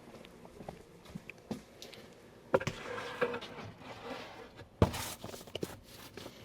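Pantry storage containers being handled on a counter: scattered small clicks and clatter, with two louder knocks about two and a half and five seconds in.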